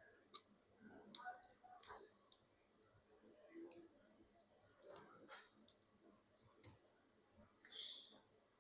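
Faint, scattered clicks and light taps of small tools and phone parts being handled during reassembly of a smartphone.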